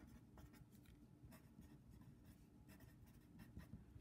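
Faint scratching of a pen writing on a paper worksheet, in many short, irregular strokes.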